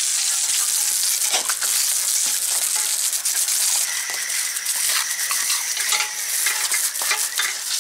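Garden hose spraying water onto concrete and a bike frame, a steady hiss with occasional splatters, as paint stripper is rinsed off the frame.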